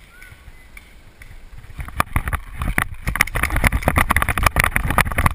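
Movement noise from a body-worn camera as its wearer runs through grass. After a quieter start, dense rapid rattling and rustling sets in about two seconds in, with rumbling wind on the microphone.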